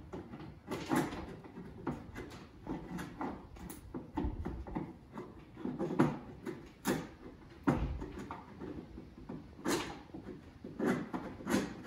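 A sharpened chisel scraping old glazing putty out of a wooden window sash, in short irregular strokes with sharper clicks among them. Two dull bumps sound a few seconds apart.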